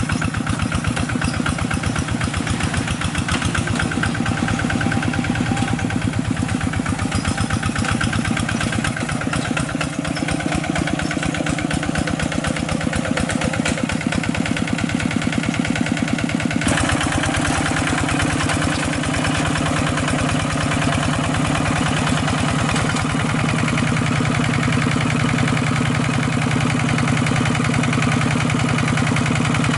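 Two-wheel hand tractor's single-cylinder diesel engine running steadily under load as it pulls a moldboard plough through wet paddy soil, in fast, even firing pulses. A little past halfway the tone changes abruptly.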